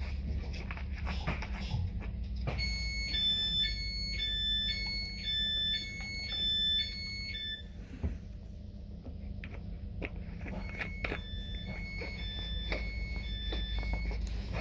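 Train door warning beeps: an electronic two-tone beep alternating about twice a second for some five seconds, then starting again more faintly, over the low steady hum of the standing diesel railcar.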